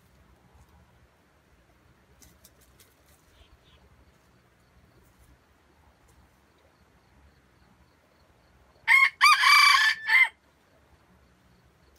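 A red junglefowl rooster crows once, about nine seconds in: a short crow of about a second and a half, broken into a few notes.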